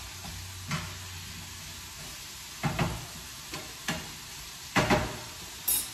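Food frying in a pan with a steady low sizzle, stirred with a utensil that knocks against the pan several times; the loudest knocks come near the end.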